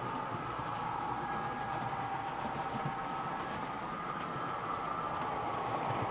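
Model railway trains running on the layout's track: a steady whine from the small electric motors with wheel and track noise beneath.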